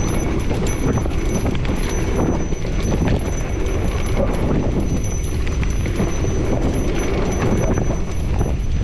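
Luna X2 electric mountain bike ridden over a dirt trail: a steady rumble of wind and tyre noise with frequent irregular knocks and rattles from the bike over rough ground.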